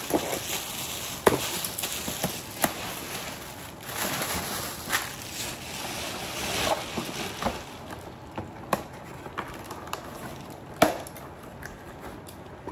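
Gift being handled and unwrapped: wrapping and packaging rustling, with scattered sharp clicks and knocks. The loudest knocks come about a second in and again near the end.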